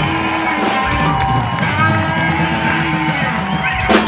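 Live rock band playing an instrumental passage: electric guitars and drums with held saxophone notes, ending on a sharp hit.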